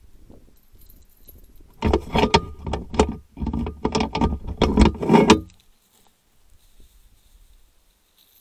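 Footsteps and handling noise of a person coming up close to a trail camera over stony ground. The crunching and clattering is loud and irregular and lasts about three and a half seconds, starting about two seconds in, with a single small click near the end.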